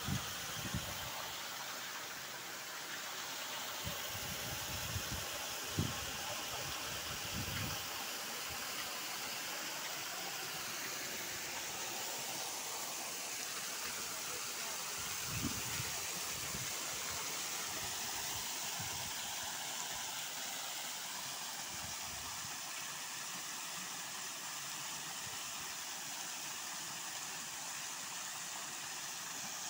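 Water spraying from an overhead pipe frame and splashing steadily into a concrete tank, a continuous even hiss, with a few soft low thumps scattered through it.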